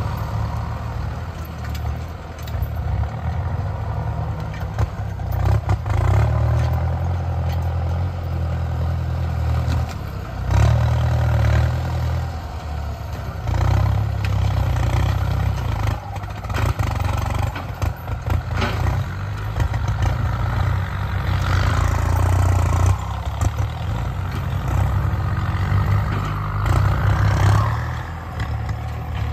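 Diesel farm tractors ploughing, their engines labouring under load with the level swelling and dipping, and scattered clattering knocks from the plough working the rough ground.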